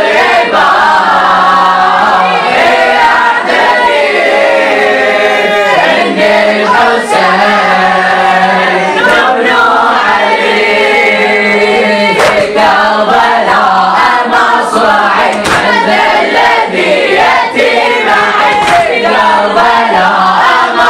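A group of boys' voices chanting a Shia latmiya (Muharram mourning elegy) refrain together as a chorus.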